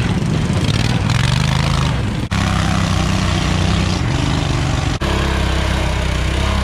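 Small garden-tractor engines running hard as the tractors drive off-road, with the sound changing abruptly twice where the footage cuts between clips.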